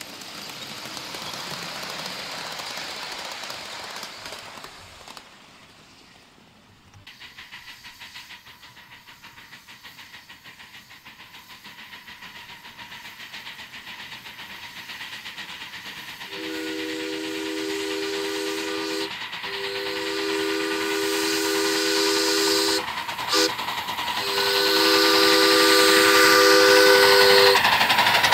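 A 1/8-scale live-steam Pennsylvania Railroad K4s locomotive approaching, its exhaust chuffing at a steady beat and growing louder. It then sounds its multi-tone steam whistle in blasts of long, long, short, long, the grade-crossing signal.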